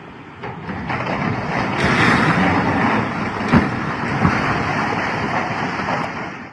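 Large steel gantry structure collapsing: a swelling rushing din of twisting, falling steelwork, with sharp metal crashes a little past halfway.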